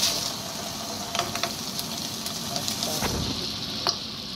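Shrimp frying in melted butter in a nonstick frying pan: a steady sizzle, with a few light taps as wooden chopsticks move the shrimp in the pan.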